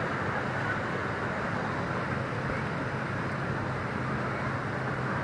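Steady drone of a moving vehicle, engine hum under road noise, even throughout.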